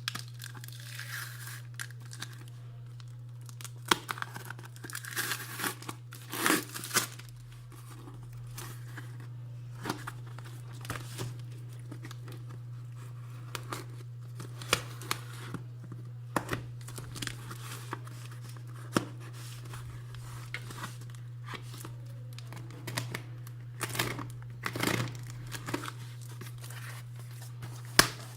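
A parcel being opened by hand: packaging torn and wrapping crinkled and rustled in irregular bursts, with sharper crackles here and there. A steady low hum runs underneath.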